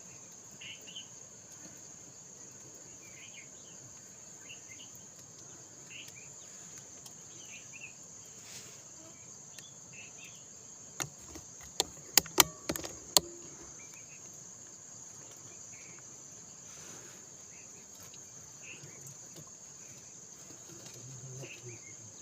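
Steady high-pitched drone of crickets or other insects. Faint scattered chirps sound throughout, and a quick cluster of about five sharp clicks comes in the middle.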